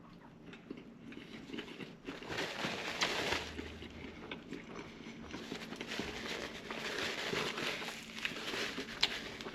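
Chewing a mouthful of chicken and lamb gyro: irregular chewing and biting sounds that pick up about two seconds in.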